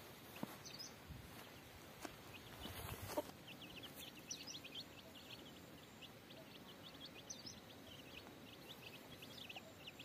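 Chicks peeping: a faint, steady run of many short high peeps, with a few soft knocks in the first few seconds.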